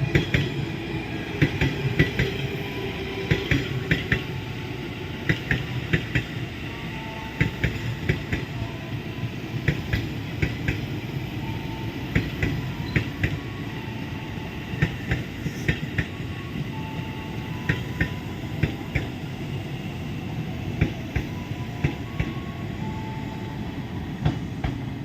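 Train passing through the station, its wheels clattering over the rail joints in regular pairs of clacks over a steady low rumble.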